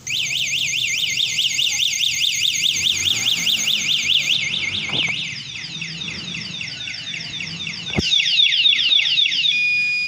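Wireless bicycle anti-theft alarm mounted on the seat post going off, set off by a touch or jolt to the locked bike: a loud electronic siren with a rapid up-and-down warble that changes about five seconds in to a run of quick falling chirps, and cuts off near the end.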